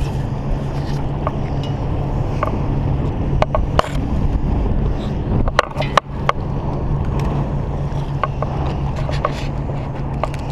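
Steady low engine drone with scattered sharp clicks and knocks, the loudest cluster about six seconds in.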